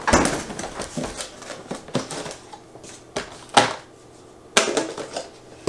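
A plastic food-storage container set down on a wooden counter and its snap-on plastic lid pried off: a run of small crackles and clicks, then several separate sharp plastic snaps.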